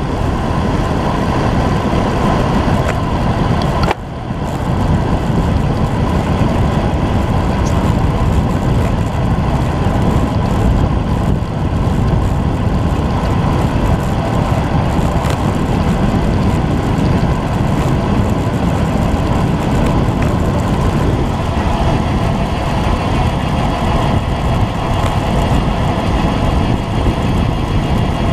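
Steady wind rush on a bike-mounted action camera's microphone as the bicycle rolls along a wet road at about 50 km/h, with a brief drop in the noise about four seconds in.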